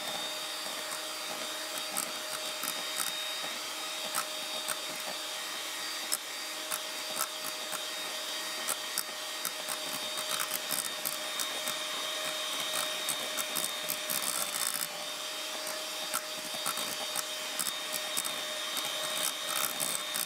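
Electric hand mixer running steadily at high speed in a stainless-steel bowl, whipping heavy cream that is close to stiff peaks, with frequent sharp clicks as the beaters knock against the bowl.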